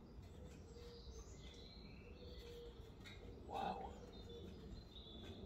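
Faint birdsong, short high chirps, over a low steady background rumble, with one short louder noise about three and a half seconds in.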